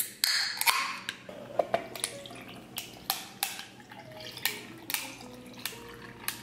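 A drink can is cracked open with a sharp click and a short hiss, then the drink is poured into a tumbler over ice, with many small clicks and cracks of ice through the pour.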